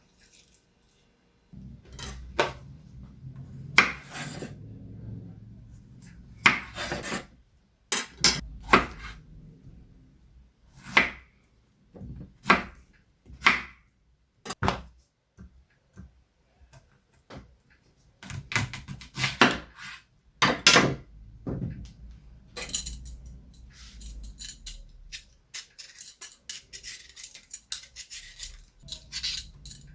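Kitchen work: irregular knocks, clatters and scrapes of utensils against wood and cookware.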